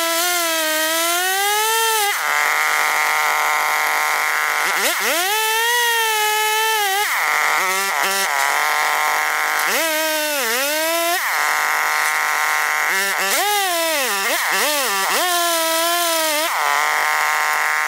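McCulloch Pro Mac 655 two-stroke chainsaw running at full throttle in a chainsaw mill, ripping lengthwise through a cedar log. The engine pitch sags repeatedly and climbs back as the chain loads up in the cut and frees again.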